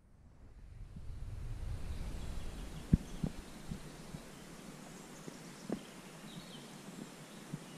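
Quiet outdoor ambience: a low rumble swells over the first two seconds and then eases off, with a few scattered soft knocks and faint high chirps in the second half.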